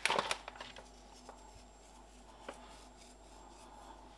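Salt grinder cranked over balls of raw minced beef: a short crackling, grinding burst at the start, then faint with a couple of small ticks.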